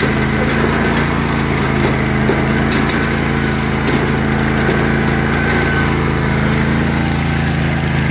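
John Deere 316 lawn tractor's twin-cylinder engine running steadily as the tractor drives along.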